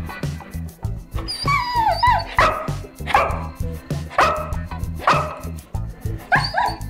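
Dog barking repeatedly on the "speak" command while held off a treat, a run of about six barks roughly one a second, one near the start drawn out with a falling pitch. Background music with a steady beat runs underneath.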